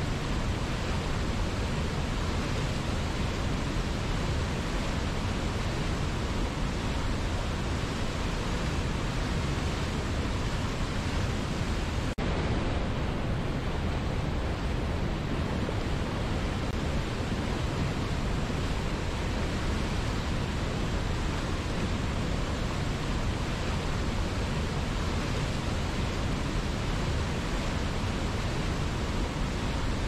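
Rushing white water of a mountain river and waterfall pouring over rocks: a steady, even rush with no breaks, apart from a momentary dip about twelve seconds in.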